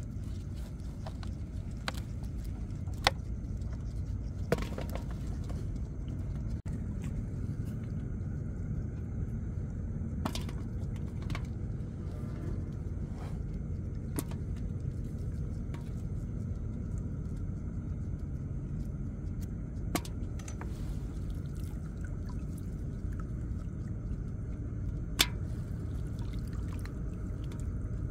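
Steady low rumble with a few sharp knocks and clicks scattered through it.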